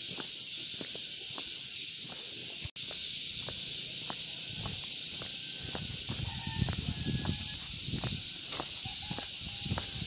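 Steady high-pitched insect drone, a cicada chorus in tropical hillside vegetation, with faint ticks about twice a second and a few short chirps later on. The sound cuts out for an instant about three seconds in.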